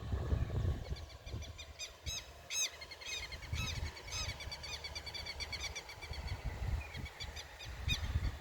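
Small birds singing, many quick repeated chirps and trills, over low rumbling wind and handling noise on the microphone.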